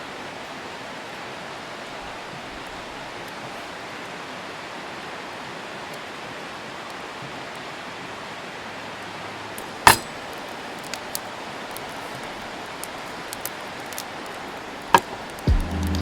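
Steady outdoor hiss, with one sharp clink about ten seconds in and a few light ticks after it; music comes in near the end.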